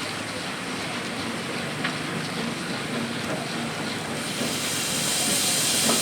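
Antique sawmill machinery running steadily, with a few light knocks; a high hiss swells up from about four seconds in.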